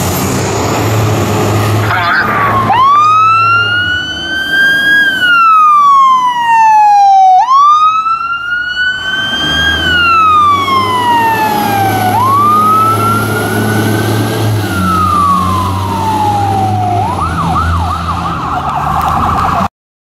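Fire truck siren wailing in three long cycles, each sweeping up and then falling slowly over about four to five seconds, followed by a few quick short yelps near the end before it cuts off.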